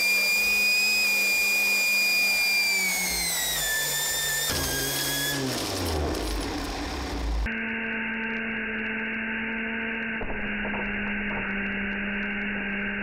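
High-pitched whine of the gas-turbine-driven 3D-printed blender's rotor, steady for about three seconds and then falling in pitch as it winds down. From about seven seconds in, it gives way to a duller, steady low hum.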